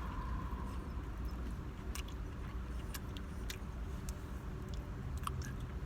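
Chewing a crunchy fried spicy chicken sandwich with the mouth closed, a few sharp crunches breaking through now and then, over a steady low hum.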